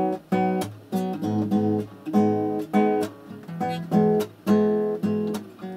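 Nylon-string classical guitar strummed in a steady rhythm, about three chord strokes a second, each chord ringing briefly before the next.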